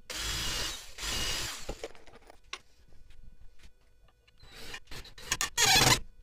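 Cordless drill-driver running in short bursts as it drives into a wooden board: two runs of about a second each near the start, then several shorter, louder bursts near the end.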